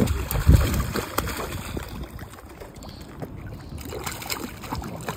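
A hooked blue catfish thrashing and splashing at the surface in the shallows, loudest in the first second, then quieter sloshing water.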